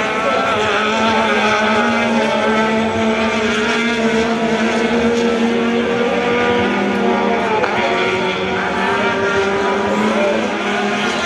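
Race car engines running on a circuit: a loud, steady drone of several held engine notes, some shifting slowly in pitch.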